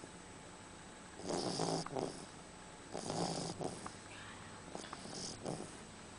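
Beagle snoring in its sleep: two loud snores about a second and three seconds in, then softer snoring breaths near the end.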